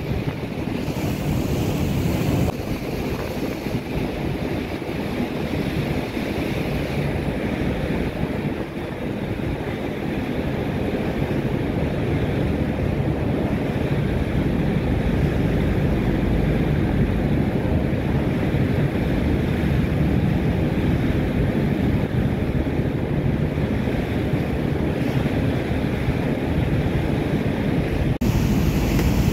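A boat underway: water rushing and churning in its wake, wind buffeting the microphone, and a low steady rumble from the vessel underneath.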